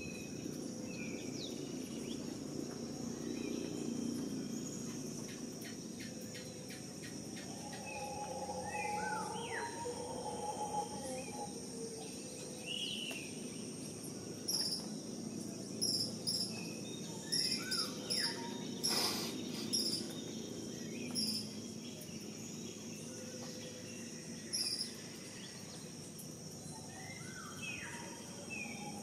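Insects droning steadily at a high pitch, with birds whistling and chirping at intervals. In the second half a short, high call repeats several times.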